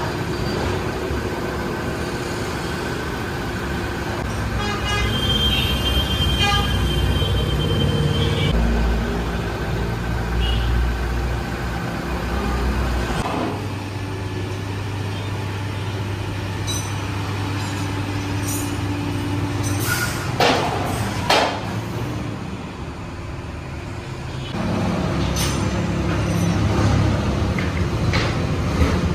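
Steady hum of an electro-hydraulic scissor lift's motor as the car is raised. The hum changes pitch a few times, and two sharp metallic clacks come about twenty seconds in.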